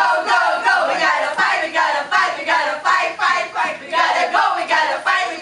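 A group of mostly women's voices shouting a cheer together in a fast, steady rhythm, about three syllables a second.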